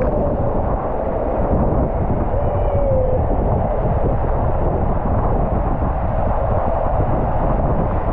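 Rushing water and wind noise on the camera during a water-slide ride: a loud, steady, muffled rumble. A short voice cry cuts through it about two and a half seconds in.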